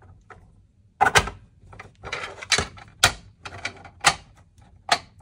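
Sharp clicks and knocks, about five of them, with a short rubbing scrape about two seconds in: a circuit-board assembly is pushed into its enclosure and the case is handled.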